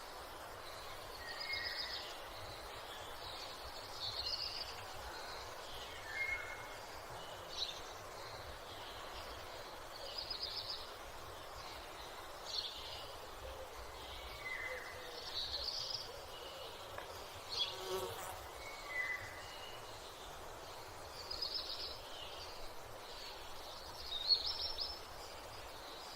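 Morning outdoor ambience: small birds chirping and trilling in short phrases every couple of seconds over a steady background hiss, with one sharp click about 18 seconds in.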